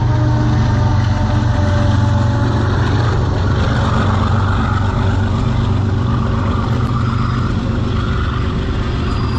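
GE Evolution-series diesel-electric freight locomotives passing close by with a steady deep engine drone. From about three seconds in, the rolling hiss of the following freight cars' wheels on the rails adds on top.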